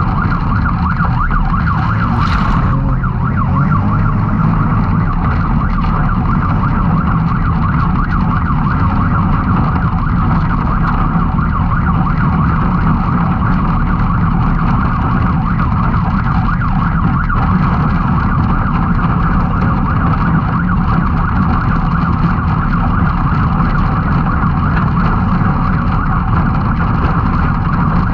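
Can-Am Maverick X3 side-by-side's turbocharged three-cylinder engine running steadily at race pace, a continuous loud drone. A single sharp knock sounds about two seconds in.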